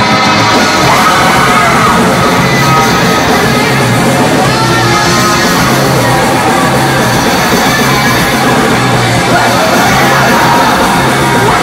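Loud live hardcore/industrial noise rock: a dense, noisy wall of band sound over a repeating low bass figure, with shouted vocals.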